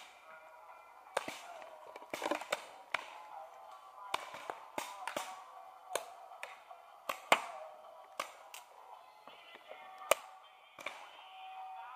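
Paintball markers firing: sharp, irregular pops, a few of them close and much louder than the rest, over a background of held tones.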